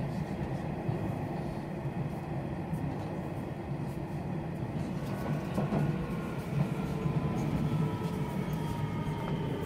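A Nishitetsu Tenjin-Ōmuta Line electric train running, heard from inside the car: a steady low rumble of wheels on rail. A faint whine comes in about halfway through and slowly falls in pitch.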